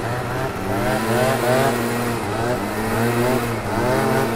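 Two-stroke scooter engines at riding speed: one steady drone underneath, and over it engine revs that rise and fall again and again as a Yamaha Aerox is held up in a wheelie alongside.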